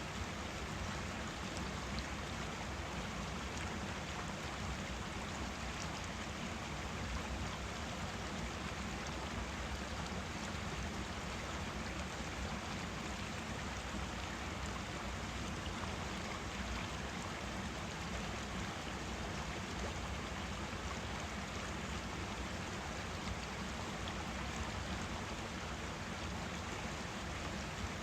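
A forest stream running over rocks: a steady, even rush of flowing water.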